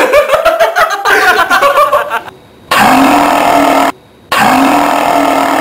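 A man's loud, long belch, drawn out in steady-pitched buzzy stretches that break off abruptly and start again after short pauses.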